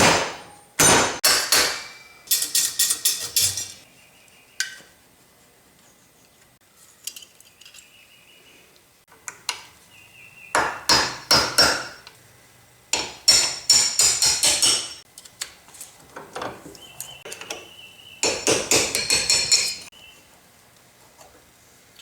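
Hammer blows on metal in rapid bursts of several strikes each, with a metallic ring and long pauses between the bursts. A stubbornly tight part of the planer's speed control knob assembly is being driven loose.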